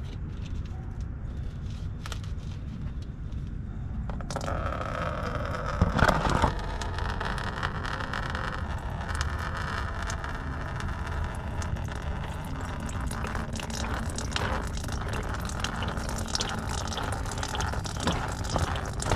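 Engine coolant running out of a disconnected radiator hose, a steady pouring hiss that starts about four seconds in, with a few clicks and a knock from tools on the car.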